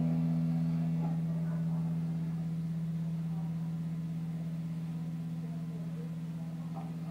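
1986 Giannini Firebrand electric guitar, amplified, letting its last chord ring: a steady low note slowly dying away.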